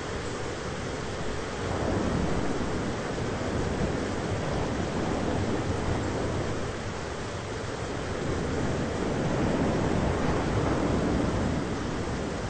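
Thunderstorm ambience: a steady wash of rain noise with a low rumble that swells about two seconds in and again around ten seconds.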